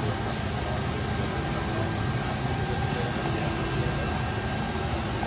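DMG Mori CMX 1100V vertical machining center milling under flood coolant: a steady rushing hiss of coolant spray over the running spindle, with a faint steady high whine.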